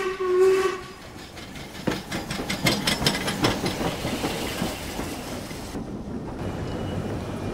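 Steam train pulling in: a steam whistle that dies away about a second in, then the clickety-clack of carriage wheels over rail joints over a steady rumbling hiss of the rolling train.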